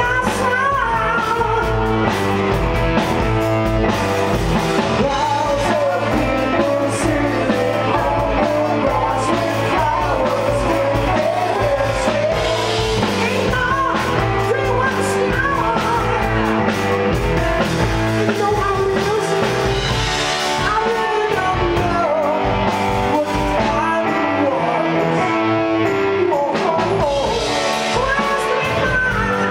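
Live rock band playing: a singer's voice over electric guitar and drums, loud and continuous.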